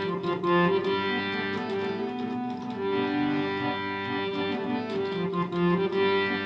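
Harmonium playing an instrumental interlude: sustained reed notes carrying a melody that moves from note to note.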